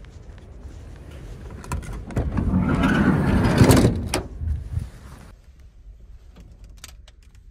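A van's sliding side door being worked as someone gets in: latch clicks, the door rolling along its track, and a loud shut a little under four seconds in, followed by a few small clicks and knocks.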